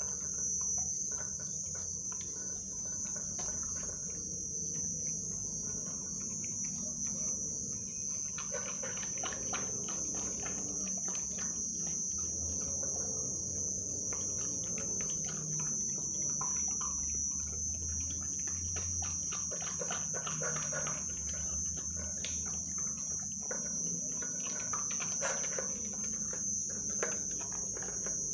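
A steady, high-pitched chirring of crickets, under an American Pit Bull Terrier puppy eating a raw meat-and-bone meal from a steel bowl. Irregular wet chewing and crunching clicks come thicker from about eight seconds in.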